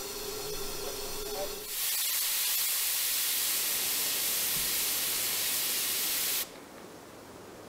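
Steam hissing from the boiler of a Lombard steam log hauler. About a second and a half in, a much louder rush of escaping steam starts and runs for about five seconds, then cuts off suddenly near the end, leaving a softer hiss.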